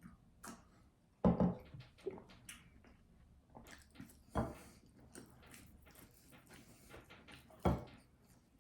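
Close-up chewing and mouth noises of people eating sauce-coated nuggets, with scattered small smacks and clicks. Three louder short knocks come about a second in, halfway through and near the end.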